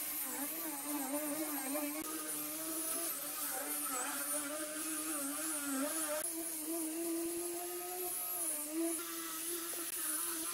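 Angle grinder fitted with a sanding disc, running steadily as it sands a pine board surface. Its motor whine wavers and dips in pitch as the pad is pressed onto the wood.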